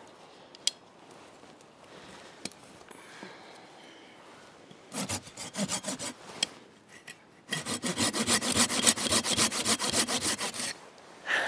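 Sharp hand saw cutting through the base of a thin standing dead tree. A few strokes come about five seconds in, then after a short pause about three seconds of quick, even strokes before it stops.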